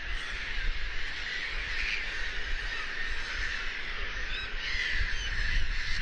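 Gulls calling, with a few cries standing out clearest about four to five and a half seconds in, over a steady hiss and a low rumble.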